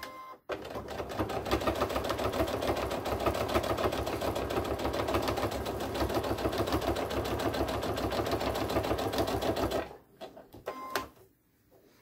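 Electric sewing machine stitching steadily at a fast, even pace through layers of cotton fabric and batting, starting about half a second in and stopping about ten seconds in.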